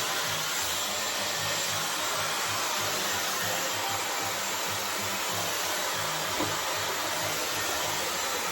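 Dyson hair dryer running steadily, an even, smooth rush of air. A single faint click about six and a half seconds in.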